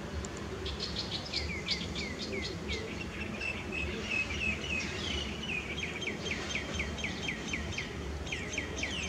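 A bird singing a fast run of short down-slurred chirps, about five a second, beginning about a second in, over low steady background noise.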